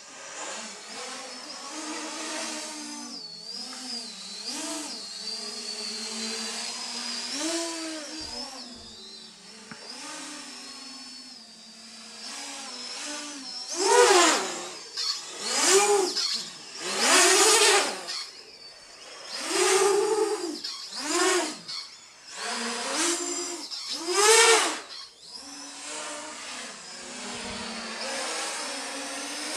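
450-size quadcopter's electric motors and propellers whining in flight, the pitch wavering as the throttle changes. From about halfway on, seven sharp surges come roughly a second and a half apart, each a quick rise and fall in pitch and loudness as the motors spin up hard and back down.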